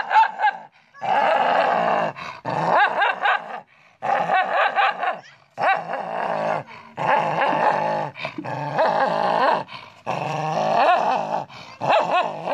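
Small terrier-type dog growling and snarling aggressively at its own reflection in a mirror. It comes as a run of rough growls about a second long each, broken by short pauses.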